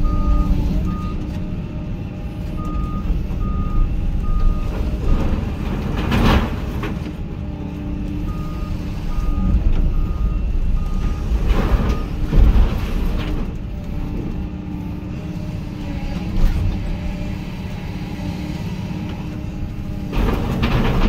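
Hyundai HX220AL excavator's diesel engine running under steady work, its travel alarm beeping in short, evenly spaced beeps at the start and again from about eight to twelve seconds in. Three loud crashes, about six, twelve and twenty seconds in, as the steel grain bin is smashed.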